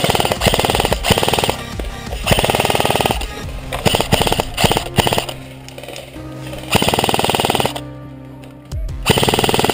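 Airsoft rifle firing several short full-auto bursts, each a rapid run of clicks about a second long, over background music.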